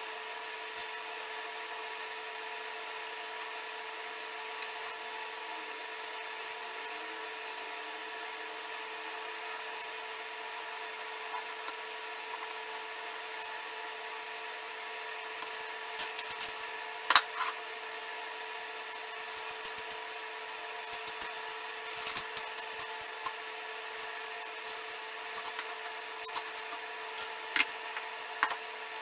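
Glued wenge and maple wooden staves clicking and knocking on a workbench as they are handled and rolled up into a ring, scattered through the second half with the sharpest knocks around the middle, over a steady hum.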